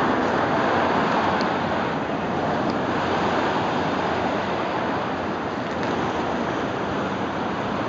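Ocean surf: waves breaking and washing ashore in a steady wash of noise, easing off slightly a couple of seconds in.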